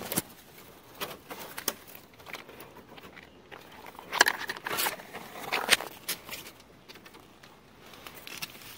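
Rustling of leaves and vines with scattered clicks and scrapes, with a few louder rustles between about four and six seconds in.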